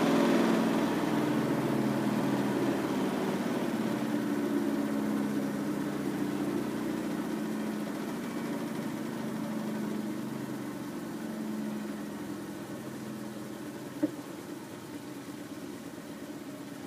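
Front-loading washing machine running, its motor hum fading gradually. A single short click comes near the end.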